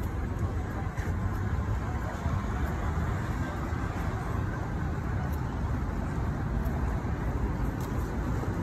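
Steady city traffic noise from cars and motor scooters driving along a busy avenue: a continuous low rumble without distinct events.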